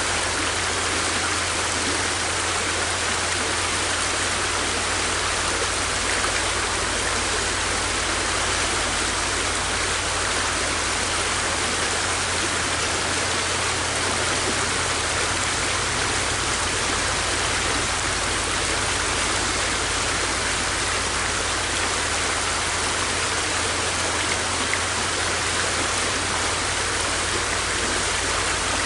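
A river flowing, a steady, unbroken rush of water with no change in level.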